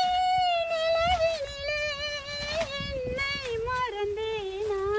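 A woman singing in a high voice: one long melodic line of held, gliding notes that slowly descends in pitch.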